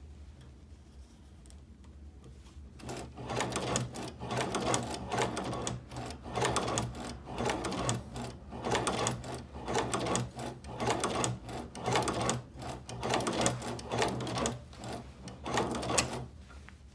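Hand-cranked Chinese leather patcher (shoe repair stitching machine) sewing through leather, one clacking mechanical stroke per stitch, a little faster than one a second. It starts about three seconds in and stops shortly before the end.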